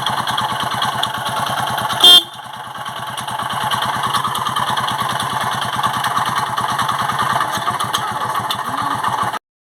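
Eco Deluxe motorcycle's single-cylinder four-stroke engine running with an even pulsing beat, a noise the mechanic puts down to the connecting rod and crankshaft bearing. A very brief, loud sharp sound comes about two seconds in, and the engine cuts off suddenly near the end.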